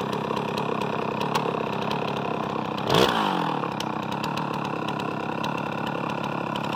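Chainsaw mounted in an Alaskan chainsaw mill, running steadily at idle without cutting, with one quick blip of the throttle about three seconds in.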